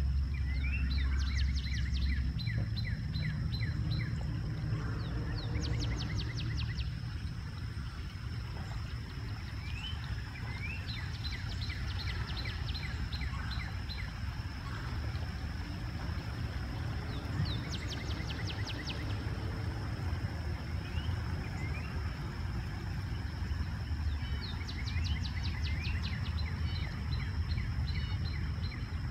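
Birds calling in quick rapid series about every five or six seconds, over a steady low rumble and a thin steady high-pitched tone.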